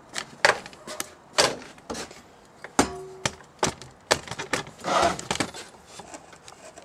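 Irregular knocks and clatters of a cut steel oil-filter canister and other objects being handled and set down on a workbench, with a brief metallic ring near the middle and a short scrape about five seconds in.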